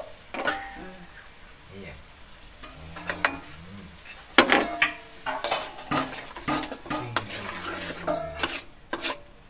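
Spatula scraping and knocking against a metal wok as a ground spice paste is stirred and sautéed, with a faint sizzle of frying under it. The clicks and scrapes come irregularly, the loudest knock about four and a half seconds in.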